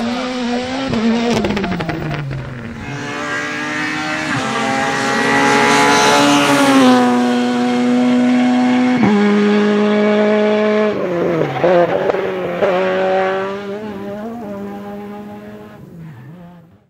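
A 2017 World Rally Car's turbocharged four-cylinder engine at full throttle, revving up and shifting up three times, about four, seven and nine seconds in. It then brakes with a string of quick throttle blips on downshifts and fades away near the end.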